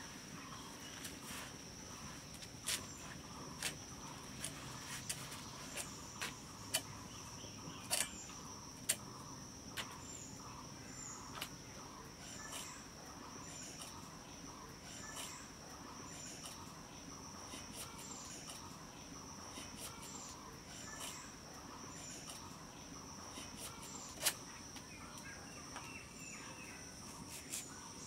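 Amaranth spinach stalks being cut on a boti blade, heard as irregular crisp snaps, about one a second in the first half and sparser later, with one sharper snap near the end. Under them runs a steady high-pitched drone of insects.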